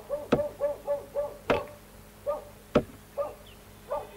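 Axe blows chopping into a tree trunk: three sharp strikes about a second and a quarter apart. Between the blows comes a string of short, repeated squeaky calls.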